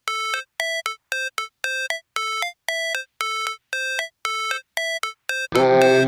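Electronic background music: a repeating pattern of short synth beeps, about two a second, each ending with a small step up in pitch. At about five and a half seconds a fuller electronic track with bass comes in.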